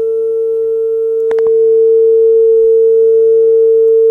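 Sony MHC-EC99i mini hi-fi stereo playing a steady, loud sine test tone a little below 500 Hz from a test disc. A short click comes about a second in, and after it the tone is louder.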